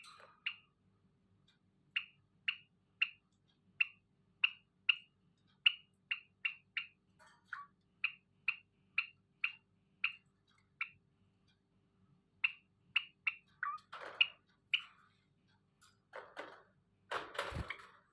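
Zebra finch giving short, sharp calls over and over, about two a second, with a brief pause partway through. Near the end a few louder noisy bursts break in.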